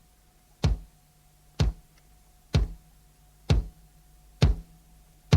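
Music intro: a deep, electronic kick drum struck alone about once a second, six hits, each dropping quickly in pitch, over a faint steady hum.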